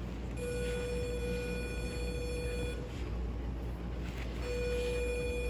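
E-collar remote's sound box beeping while the stimulation button is held: two long, steady electronic beeps, the first about two seconds long, the second starting about four seconds in. Each beep marks low-level stimulation being sent to the dog's collar.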